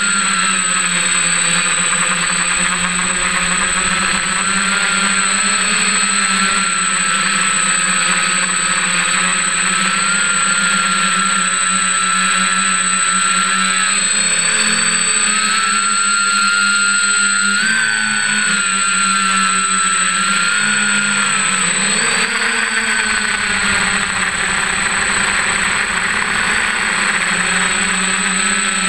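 F550 hexacopter's six electric motors and propellers running in flight, a steady drone with a high whine whose pitch wavers up and down as the throttle changes, heard from a camera mounted on the frame.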